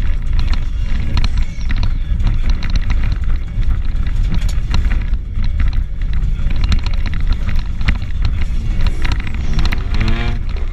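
Car driven hard on a snow-covered road, heard from inside the cabin: a heavy, continuous rumble with many knocks and scrapes from the body and tyres, and the engine revving up sharply near the end.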